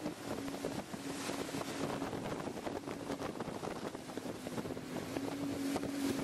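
Wind buffeting the microphone and water rushing past a fast-running patrol boat, over the steady drone of its engines at high speed.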